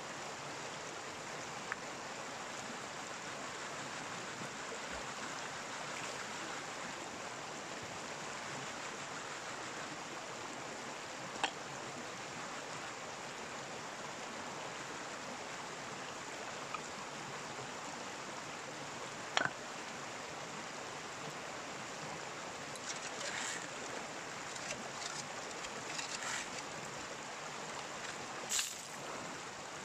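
Steady rush of stream water running. A few sharp clicks or knocks come through it, once near the middle and in a short cluster near the end.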